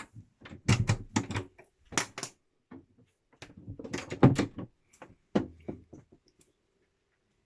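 A rapid series of clicks and knocks, like hard fittings being handled in a small cabin, in two clusters: one about a second in and a longer one around four to five seconds in.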